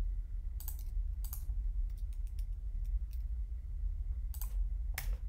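Computer keyboard and mouse clicking in scattered, irregular clicks, the loudest about five seconds in, over a steady low hum.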